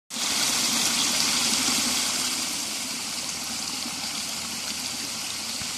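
Small waterfall pouring into a creek: a steady rush of falling water, easing slightly about two seconds in.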